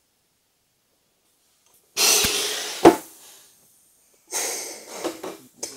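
Pneumatic cylinders on a Whitney Jensen 418 pan-and-finger brake working the bending leaf through 10-gauge steel, heavier than the brake's 14-gauge rating. About two seconds in there is a sudden hiss of compressed air that fades and ends in a loud metal clank. A second hiss follows with a few smaller knocks as the leaf moves back.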